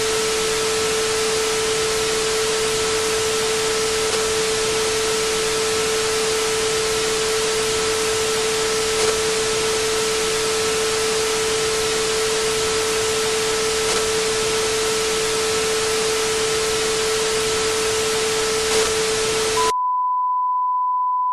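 Television static hiss with a steady tone running through it. About twenty seconds in, the static cuts off sharply and a steady pure sine test tone begins, the colour-bars tone that marks the end of the countdown.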